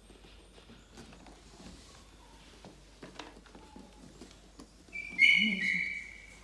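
Faint rustles and small clicks, then about five seconds in a newborn Shiba Inu puppy lets out one high-pitched squeal lasting a little over a second, falling slightly in pitch.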